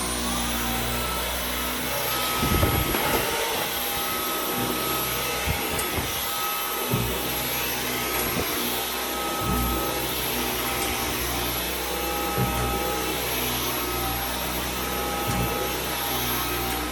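Dyson Outsize cordless stick vacuum running steadily, with a constant high whine over its motor noise and a few short knocks along the way.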